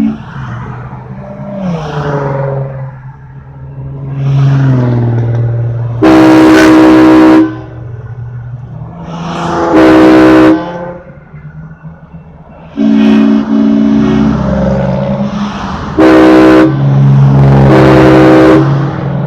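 Multi-chime air train horn sounding about five long blasts, each a loud steady chord, with a lower drone rising and falling in the gaps between them.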